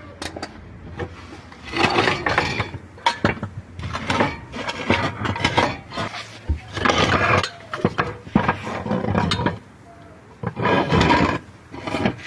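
A man straining under a car while pulling out its manual gearbox: about six hard grunts and heavy breaths, each about a second long, with light metallic clinks between them.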